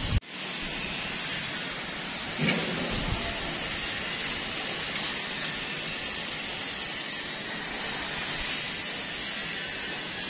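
Steady hiss of rain falling outdoors. There is a short thump right at the start and a brief low rumble about two and a half seconds in.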